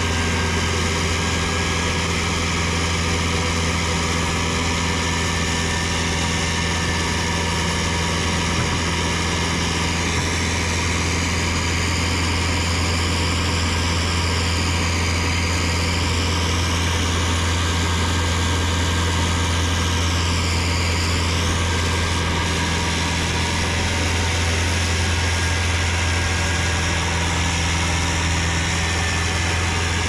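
Diesel engine of heavy paving equipment running steadily with a constant low hum. A faint high whine dips and rises in pitch between about a third and two-thirds of the way through.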